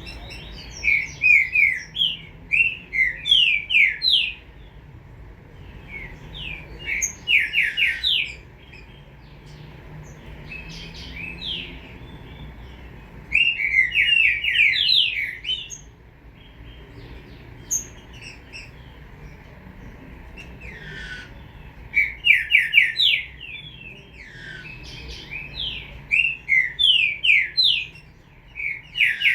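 Young green-winged saltator (trinca-ferro) singing: bursts of quick notes that sweep rapidly downward, each phrase lasting a couple of seconds, repeated with pauses between.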